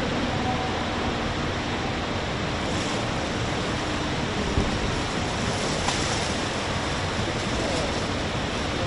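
Steady rushing noise of machinery and air in a large industrial hall, with a faint low hum underneath. A light knock is heard about halfway through.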